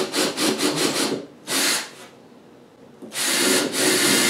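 Cordless drill boring a pilot hole into redwood, the bit cutting through the wood in short bursts, then a pause about two seconds in, then one longer run of about two seconds near the end.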